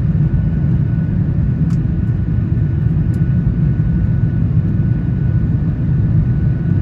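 Inside the cabin of a Boeing 737-900, seated beside the wing: the CFM56-7B turbofans at takeoff power, a steady deep rumble with a faint steady high whine over it.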